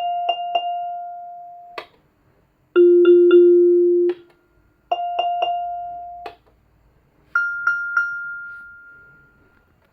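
Yamaha YMK-80 marching keyboard playing bell-like notes in four groups, each one note struck three times in quick succession and then left to ring and fade. The third group is lower and louder, and the last is the highest. The first three cut off with a click, and the last dies away slowly.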